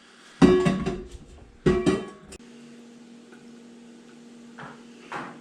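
Pots and pans clanking twice as they are handled, each clank ringing briefly, then a steady low hum with two faint knocks near the end.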